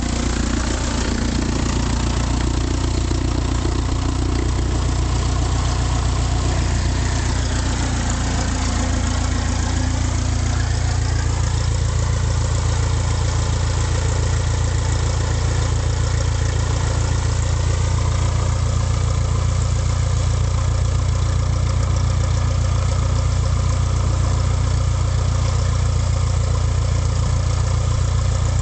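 Light aircraft's piston engine and propeller running with a steady drone; its pitch rises a little about ten seconds in and then holds.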